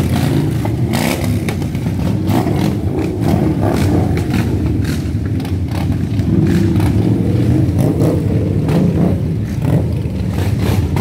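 A big group of Harley-Davidson motorcycles, their V-twin engines running in a steady low rumble as they ride slowly in.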